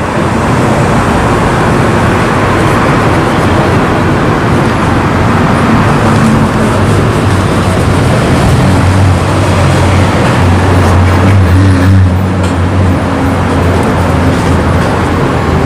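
A steady, loud, machine-like noise with a low hum.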